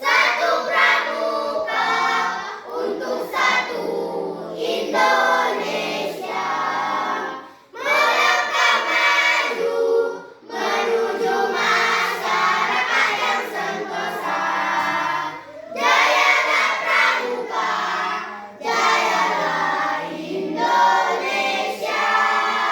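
Choir singing together in sustained phrases, with brief pauses between phrases at about 8, 10, 16 and 19 seconds in.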